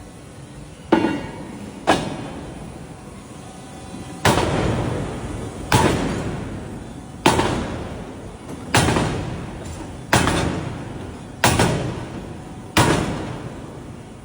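Nine heavy hammer blows in forging, each striking sharply and ringing out as it fades. Two blows come about a second apart, then seven follow at a steady pace about one and a half seconds apart.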